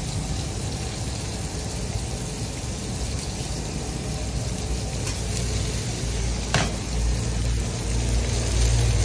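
Floured sardines frying in a shallow pan of hot oil, a steady sizzle as pieces are laid in. There is a brief clack about six and a half seconds in, and a low rumble comes up over the last few seconds.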